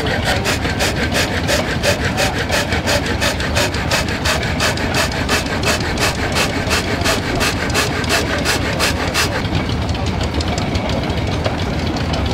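Old flat-belt-driven woodworking machine cutting into a wooden board with an even rasping stroke, about four a second, that stops about nine seconds in. A stationary engine runs steadily underneath throughout.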